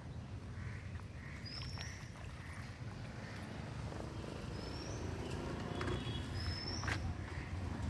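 A bird's short, high, rising whistle, repeated four times, over a steady low traffic rumble that grows louder toward the end, with a few sharp footstep-like clicks.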